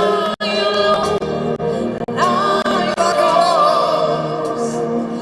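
Live gospel worship music: voices singing long, wavering notes over sustained accompaniment, with a brief break about half a second in and another around two seconds in.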